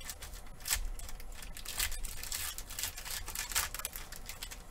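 Foil trading-card pack wrapper being torn open and crinkled by hand: irregular scratchy crackles and short rips, the strongest about three-quarters of a second in and around two and a half seconds.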